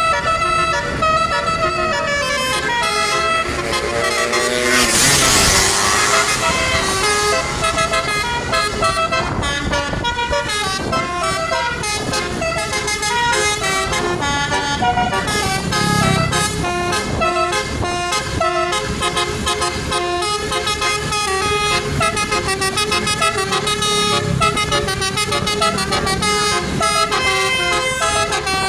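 Multi-trumpet basuri telolet bus horn playing a tune of quickly changing notes without a break. A short burst of hissing noise comes about five seconds in.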